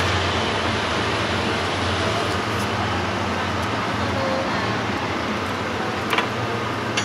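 Steady city background noise of distant traffic: an even hiss over a constant low hum.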